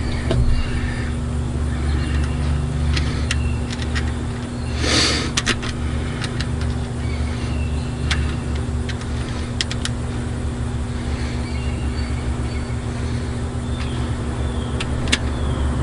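Steady low mechanical drone, with scattered light metallic clicks from hands and tools working on the truck's fuel line. A short hiss comes about five seconds in.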